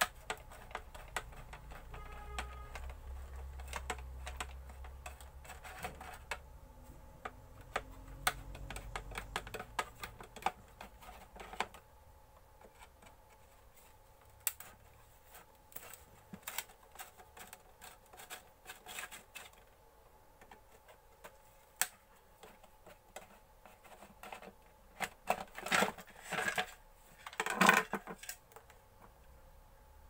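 Screwdriver and hands working on a mixer grinder's plastic housing: scattered small clicks and taps as screws are undone and parts handled, with a few louder knocks near the end. A low hum runs underneath for the first third or so.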